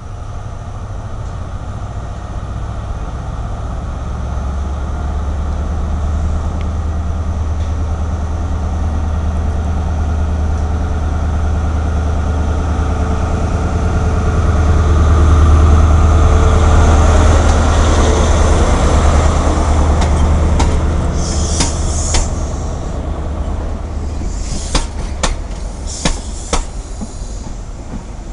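An InterCity 125 (HST) arriving slowly. The Class 43 power car's diesel engine makes a low drone that builds up and is loudest as the power car passes, about halfway through. As the coaches roll by near the end, wheels click over rail joints and squeal briefly.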